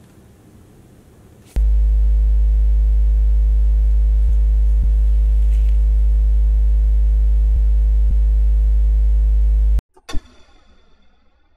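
A loud, steady low electronic hum with a buzzing edge, starting abruptly about a second and a half in and cutting off suddenly near the end, followed by a short click.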